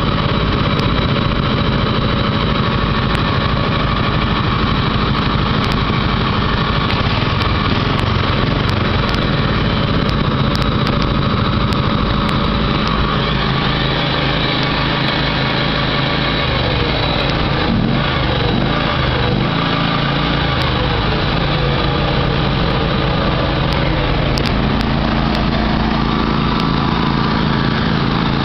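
Lawn tractor engines running steadily at idle, more than one at once, with the engine note shifting up and down a few times past the middle.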